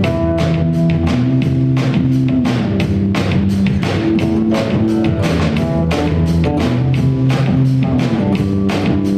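Live band playing an instrumental passage: a drum kit keeping a steady beat of about three strokes a second under guitar and bass lines.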